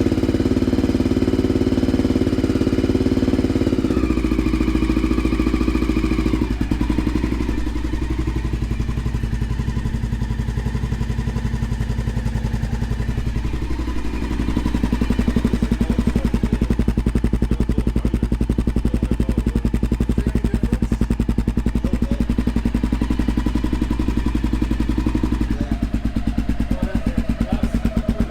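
Honda XR650L single-cylinder four-stroke engine running at idle through a freshly repacked Big Gun Evo-R muffler, its note shifting a few times as engine speed changes.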